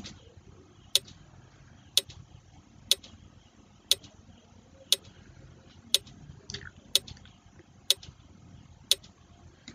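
Quiz countdown timer sound effect ticking steadily once a second, nine clock-like ticks.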